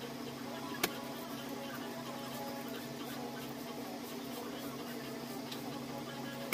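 Small scissors snipping through paper, with one sharp snip about a second in and fainter cuts after it, over a steady background hum.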